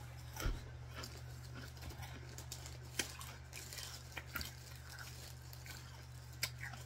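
A steady low hum with a few short, sharp clicks and small mouth or movement noises close to the microphone.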